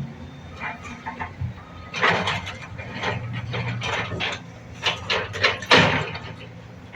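Excavator-mounted hydraulic breaker hammer striking in irregular bursts of sharp blows, loudest in a cluster about two seconds in and again near the six-second mark, over the steady running of the excavator's diesel engine.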